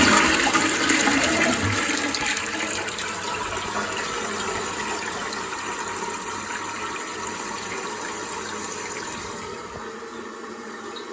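Toilet flushing through a newly fitted Geberit flush valve after the push button is pressed: a loud rush of water at the start that gradually dies away over about ten seconds.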